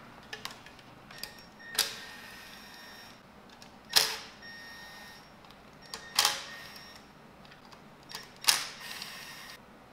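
Tools and parts handled during removal of a motorcycle's headlight housing: four sharp clinks about two seconds apart, each with a short metallic ring, with lighter clicks between them.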